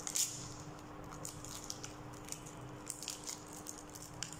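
Paper-and-plastic peel pack of a disposable syringe being pulled apart and handled: faint, scattered crinkling and crackling, with a sharper crackle right at the start.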